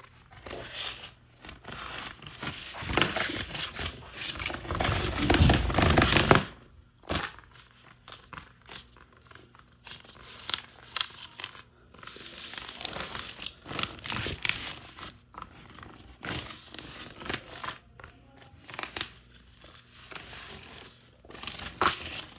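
Vinyl LP packaging being handled and opened: crinkling and tearing of plastic wrap and paper, loudest and most continuous in the first six seconds, then shorter scattered rustles and clicks.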